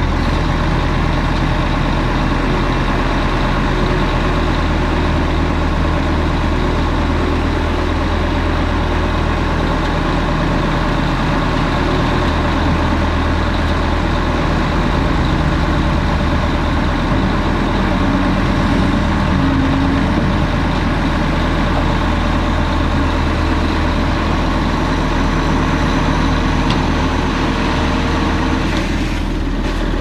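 Mercedes-Benz Actros tipper truck's diesel engine running steadily, driving the hydraulics as the dump body tips up to unload soil.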